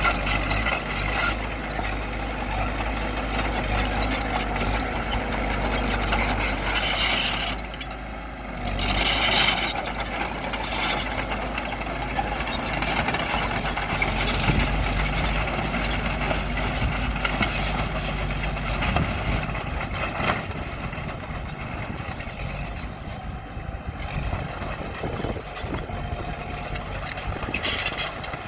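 Bulldozer at work: its diesel engine runs under load amid a continuous metallic clanking and knocking, as from steel tracks and rock. The noise eases briefly about eight seconds in, then rises again.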